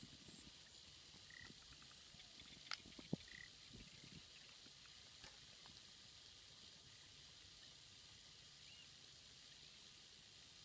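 Near silence: a faint steady hiss of outdoor background, broken by two sharp clicks close together about three seconds in and a couple of brief high chirps.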